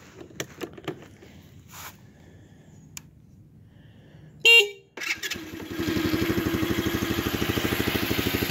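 A few light clicks, then a short horn beep about four and a half seconds in, and the Apollo 125cc kids' ATV's single-cylinder four-stroke engine starts about a second later and settles into a steady, quiet idle.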